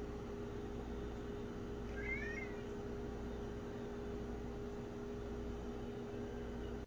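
A domestic cat gives one short, high chirp about two seconds in, over a steady background hum with two low tones. The hum cuts off abruptly at the end.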